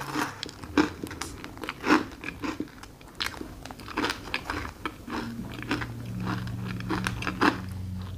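Close-up biting and chewing of a waffle topped with whipped cream, chocolate sauce and raspberries: irregular short, crisp crunches throughout.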